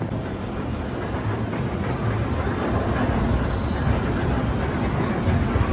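Steel roller coaster train running along its track, a steady low rumble with no clear screams.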